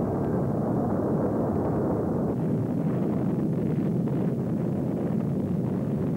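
Steady low rumbling roar of an erupting lava flow, with a few faint crackles in the middle.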